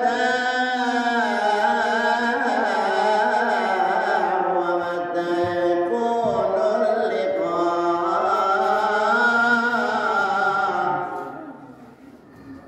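A man singing a slow, ornamented religious chant solo, with long wavering held notes; the singing stops near the end.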